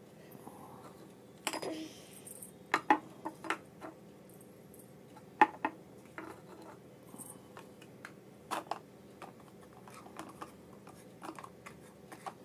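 Small plastic toy pots, cups and a spatula being handled, giving scattered light clicks and knocks with a brief scrape, the sharpest knock about five and a half seconds in.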